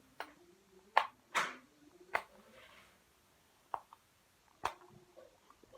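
Silicone bubbles on the loud side of a pop-it fidget spinner being pressed through: about seven sharp pops, irregularly spaced.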